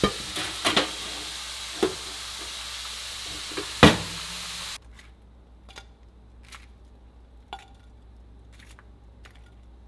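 A pan sizzling steadily while a metal tray clanks into a toaster oven, with a loud clack as the oven door shuts a bit before four seconds in. The sizzle then cuts off, leaving light clicks of metal tongs and a plate.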